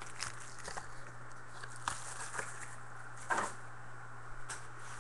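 Scattered crinkles and clicks of trading-card boxes and pack wrappers being handled, the loudest rustle about two-thirds of the way in, over a steady low electrical hum.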